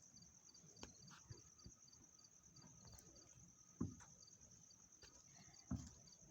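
Near silence: a faint, steady high-pitched pulsing trill, with two soft low thumps, one about halfway through and one near the end.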